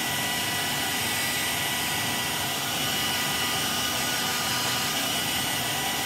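Handheld hair dryer running steadily: an even rush of blown air with a faint steady whine from its motor.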